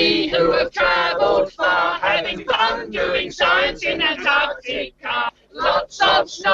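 A group of people singing a song together.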